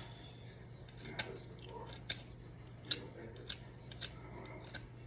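A knife blade shaving wood from a pencil by hand: a series of short, crisp scraping strokes, about six of them, spaced half a second to a second apart.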